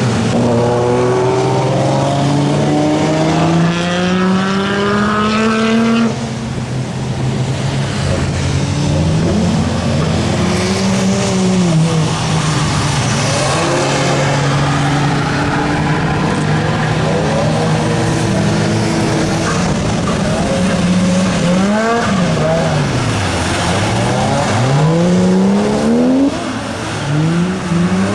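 Car engines revving hard as cars run on a circuit, their pitch climbing and dropping again and again with several engines overlapping. One long rising rev breaks off sharply about six seconds in.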